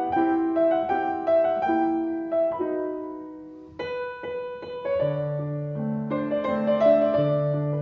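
Background instrumental music on a keyboard: a melody of held notes, with lower bass notes coming in about five seconds in.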